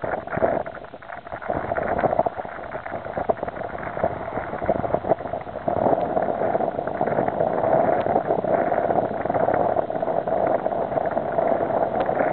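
Wind buffeting the microphone as a gusty rushing noise, choppy at first and steadier and louder from about halfway through.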